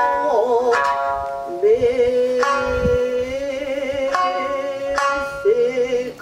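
Nagauta music: a long-held, wavering sung vocal line over sparse plucked shamisen notes.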